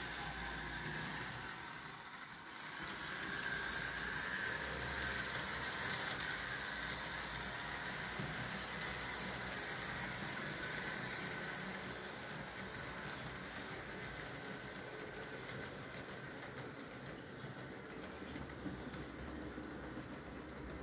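Model BR 151 electric locomotive running with a long train of wagons on a model railway: a steady whirr of the motor and the rolling of small wheels on the track, with a couple of sharp clicks a few seconds in.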